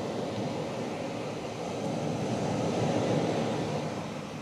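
Steady rushing background noise with no distinct tones, swelling slightly a few seconds in and easing toward the end.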